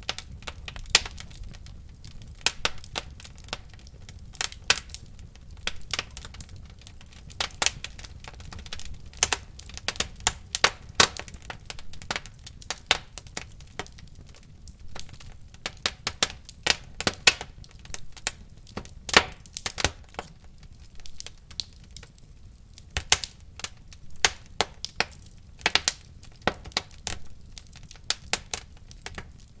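Wood fire burning in a fireplace, with constant irregular crackling and sharp pops over a low steady rumble.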